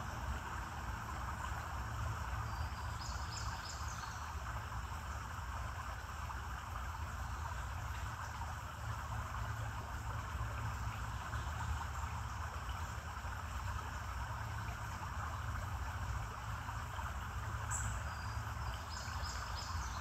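Steady outdoor ambience beside a creek: an even hiss with a low rumble beneath it, and two short high chirps, one about three seconds in and one near the end.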